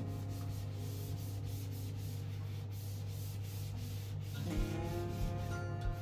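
A steady rubbing sound, like something being scrubbed or sanded on a surface, over a low steady hum. Soft background music comes in about four and a half seconds in.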